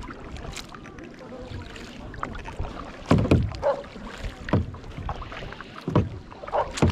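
Double-bladed kayak paddle dipping into lake water on alternate sides, with splashes and drips every second or two.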